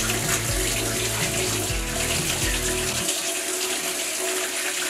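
Tap running warm water steadily into a plastic feed bucket, with a low hum underneath that stops about three seconds in.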